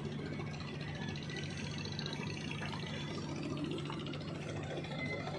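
Steady low hum of an idling boat engine, even and unchanging, over a light background noise.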